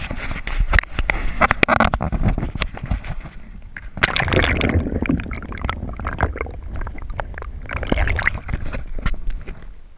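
Water sloshing and gurgling against an action camera's waterproof housing as it is held at and under the surface, with many sharp knocks and clicks from the housing.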